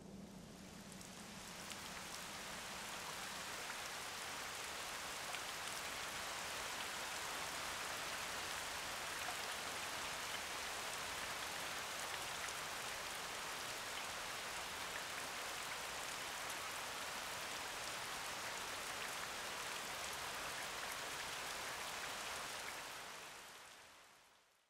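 Steady rainfall, an even hiss of rain that swells in over the first couple of seconds and fades out near the end.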